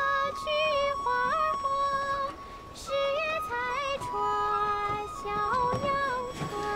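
Drama score: a slow melody of long held notes that slide between pitches, carried by a wordless female-sounding voice.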